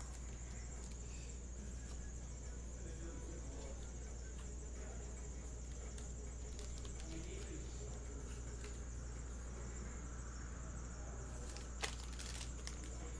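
Quiet room tone: a steady low electrical hum and a thin, constant high-pitched whine. Over it come faint rustles of cards being slid into plastic team bags, and a single sharp click near the end.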